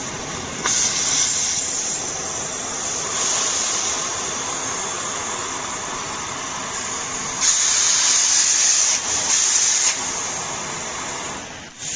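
Oxy-fuel cutting torch on a portable CNC flame-cutting machine hissing steadily as its flame is lit and adjusted from a smoky yellow flame to a sharp blue one. The hiss gets louder about a second in, and louder again for a couple of seconds past the middle.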